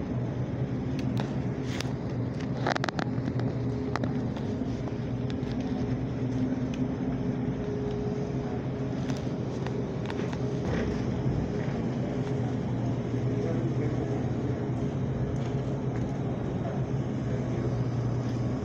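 Steady low hum of a supermarket's refrigerated display cases and ventilation, with a few clicks and rattles between about one and three seconds in.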